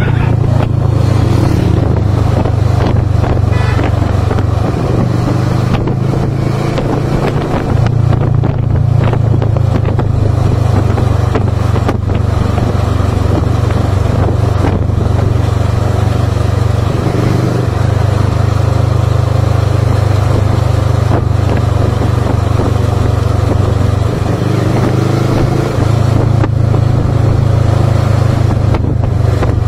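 A CFMoto GT400 motorcycle riding at speed: a steady low rumble of wind on the microphone over the engine running, the rumble jumping in level abruptly several times.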